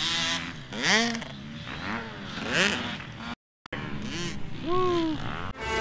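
Dirt bike engines revving in short bursts, each rising and falling in pitch, with the sound cutting out briefly a little past halfway.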